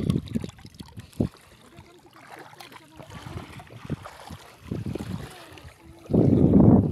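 Legs wading and sloshing through shallow seawater in uneven low swishes, the loudest a second-long rush near the end.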